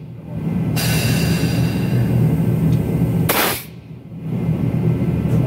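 Compressed air hissing from a shop pit jack over a steady low rumble. A long hiss runs through most of the first three and a half seconds and ends in a sharper burst, then only the rumble is left.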